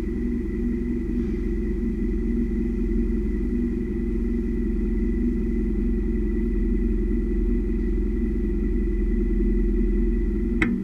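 Steady low drone of a 200-series Toyota HiAce on the move, heard from under the rear at the leaf spring. One sharp knock near the end: the rear bump stop touching, a sign of the 3-inch block lowering, which the shop says a C-notch will cure.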